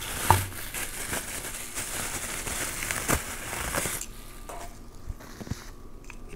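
Plastic bubble-wrap bag crinkling and rustling as it is handled and pulled off a small part, with many sharp crackles. The rustling dies down after about four seconds, leaving a few light clicks.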